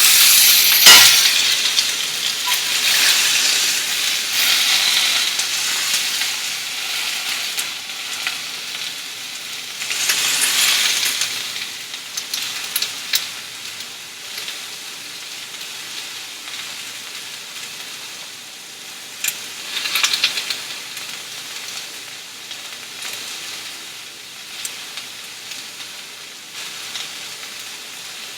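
A buffalo-meat kebab sizzling in hot olive oil in a pre-heated skillet. The sizzle is loudest at the start, swells up again around ten and twenty seconds in, and has a few small clicks.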